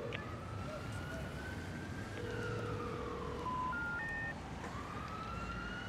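A siren wailing faintly, its pitch rising slowly, sliding down over about two seconds, then rising again. A soft held tone and three short notes stepping up in pitch sound about halfway through.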